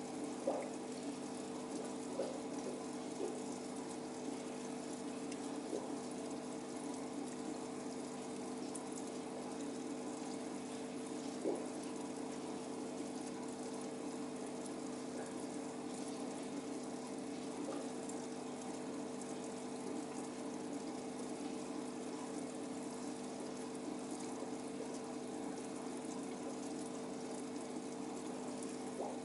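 Aquarium pump running with a steady hum and a constant sound of moving water, with a few faint ticks.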